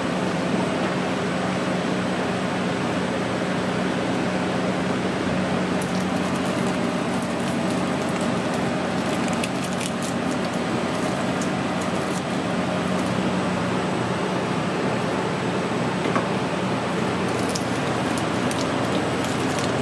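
Smoked pork shoulder being pulled apart by gloved hands, with fine wet tearing and squishing crackles about six to eleven seconds in and again near the end. Under it a steady machine hum, like kitchen ventilation or air conditioning, runs throughout and is the loudest sound.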